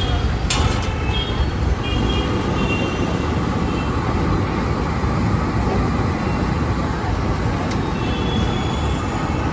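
Dal vadas and medu vadas deep-frying in a kadai of hot oil, a steady sizzle, mixed with continuous street traffic noise. A single click about half a second in.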